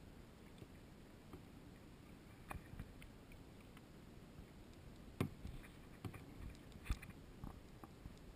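Kayak paddling: the paddle blades dip and splash in calm water with drips and a few sharp knocks, the loudest about five and seven seconds in, over a faint low steady noise.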